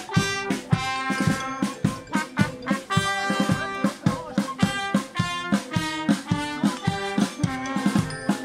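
Amateur wind band playing a tune: clarinet, saxophone, trumpets and horn over a steady beat from snare and bass drum.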